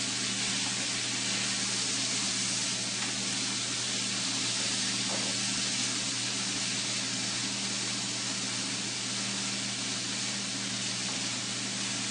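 Chopped onion, tomato and spices frying in oil in a pan: a steady, even sizzling hiss.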